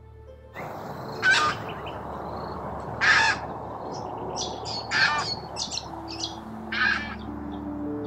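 Australian white ibis calling: four loud, harsh croaks about two seconds apart over a steady background hiss, with a few short, higher chirps of smaller birds between them.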